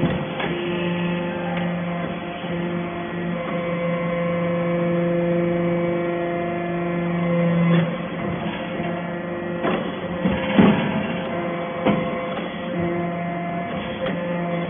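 Hydraulic metal-chip briquetting press running: a steady hum from its hydraulic power unit, whose deepest tone drops away about eight seconds in, followed by a few sharp metallic knocks, the loudest about ten and a half seconds in.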